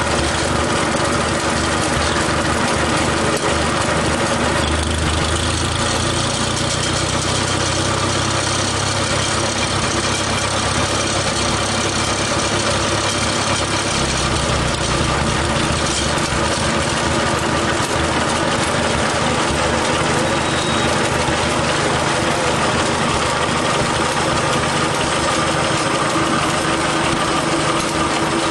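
Plymouth narrow-gauge industrial locomotive's engine running steadily close by, its low rumble heavier from about five to fourteen seconds in.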